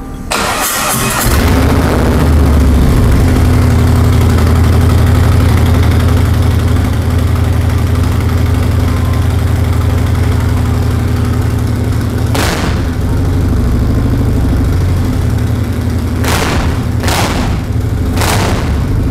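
A 2018 Harley-Davidson Road Glide CVO's Milwaukee-Eight V-twin, fitted with a Two Brothers Racing (TBR) 2-into-1 short exhaust, is started with a short crank and catches within the first second. It then idles steadily and loudly, with four quick throttle blips: one about two-thirds of the way through and three in quick succession near the end.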